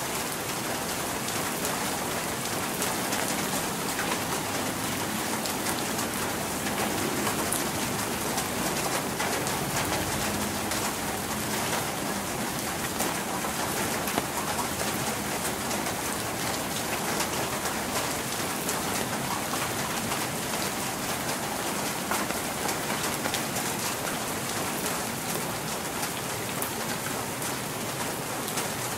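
Steady rain falling, with many separate drops striking a hard surface.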